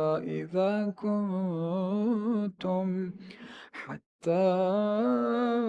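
A man reciting the Quran in melodic tajweed style, with no music or effects: ornamented, wavering vowels, then a quick intake of breath about three and a half seconds in and a brief pause, before a long, steady held note.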